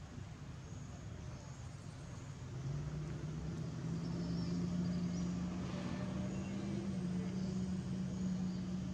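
Motor vehicle engine running, with a low steady hum that rises in pitch and grows louder about two and a half seconds in, then holds steady.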